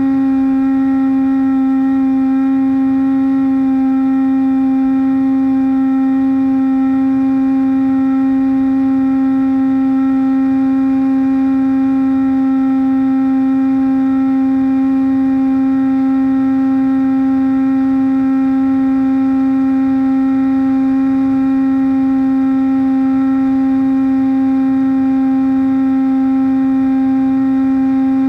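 Brushless electric motor (Turnigy D2826-6 2200kV) spinning a 6x5 propeller on a Bixler model plane at a steady cruise throttle, heard from on board as a loud, even drone with a single held pitch.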